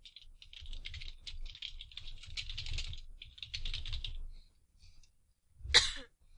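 Rapid typing on a computer keyboard for about four seconds, keys clattering in quick runs. Then a single, louder sharp click near the end.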